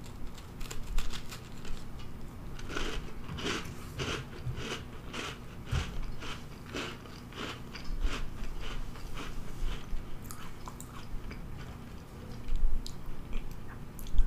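A person biting and chewing a Pillsbury Cinnamon Toast Crunch cookie: a bite, then a run of crisp crunches about two a second, and another bite near the end.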